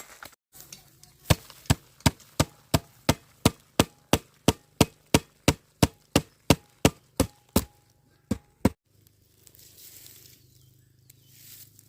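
Rapid, steady chopping with a blade: about twenty sharp strikes at roughly three a second, stopping about nine seconds in.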